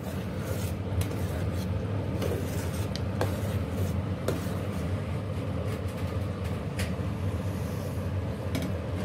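Metal ladle stirring and clicking against an aluminium pot of simmering chickpea curry, a few sharp clicks scattered through, over a steady low hum from the lit stove burner.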